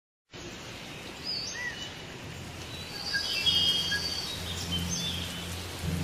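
Tropical rainforest ambience cuts in after a brief silence: a steady rain-like hiss with scattered short bird chirps and calls. A low rumble joins about two seconds in.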